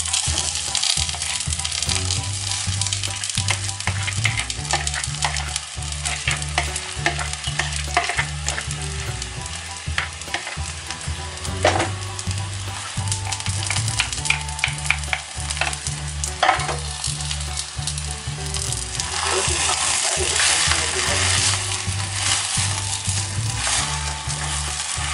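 Mashed potato sizzling as it fries in hot oil with onion in a clay pot. A spoon and a spatula scrape and knock against the pot as the potato is stirred in.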